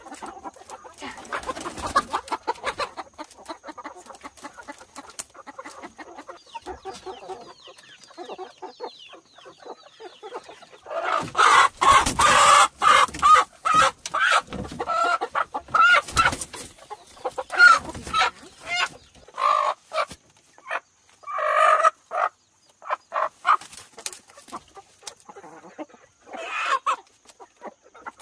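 Chickens clucking and squawking: softer high chirps at first, then loud, irregular squawks and cackles from about halfway through.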